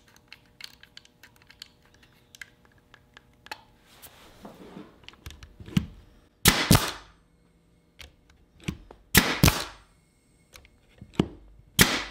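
Porter-Cable 18-gauge pneumatic brad nailer: small quick clicks as its depth adjustment is turned, then the nailer firing three times, about three seconds apart, each shot a sharp double crack. These are test shots with the nail set turned deeper because the brads were not sinking.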